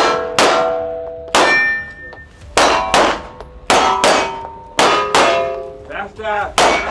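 A string of about nine pistol shots, each followed by the ringing clang of a steel target plate being hit. The shots come irregularly, a third of a second to a second apart, as the shooter moves between targets.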